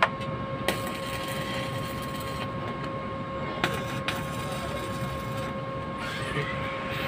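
Stick (arc) welding on a steel frame: the arc crackles and hisses for several seconds, struck with a sharp click about a second in and broken off and restruck near the middle, over a steady hum.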